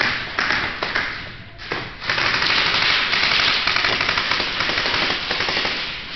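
Airsoft guns firing on full automatic as rapid, dense clicking: a burst, a short break about a second and a half in, then a long burst of about three seconds that fades near the end.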